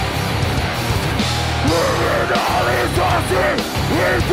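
Rock band playing live: electric guitar, bass guitar and drums under a shouted lead vocal.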